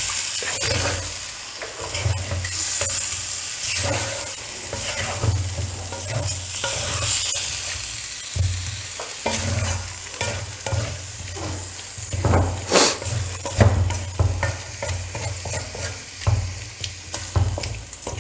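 Chicken and masala being stirred with a spatula in a kadai over the heat: a steady sizzle with irregular scraping and knocking strokes against the pan, and one sharper knock about thirteen seconds in.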